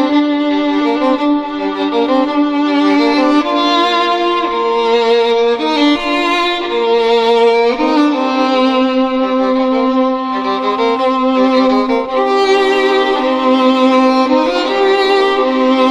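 A ringtone: an instrumental melody of held notes with vibrato, changing pitch every second or so, with no bass line.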